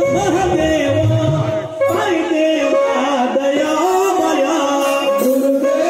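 A man singing a devotional Ganesh bhajan into a microphone, amplified over loudspeakers, with a melodic line gliding over steady held musical tones.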